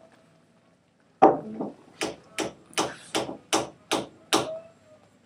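A run of about nine sharp knocks, evenly spaced at two to three a second, starting about a second in.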